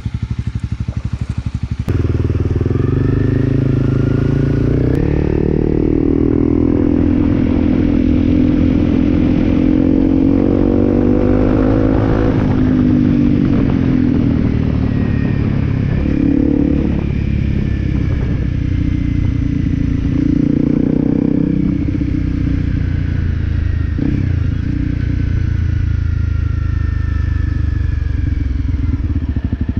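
Honda CRF250L's single-cylinder four-stroke engine running while the bike is ridden, its pitch climbing under acceleration and dropping off several times. Wind noise runs underneath.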